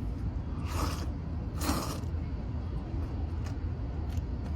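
Two short slurps of knife-cut noodles in soup, about a second apart, over a steady low hum.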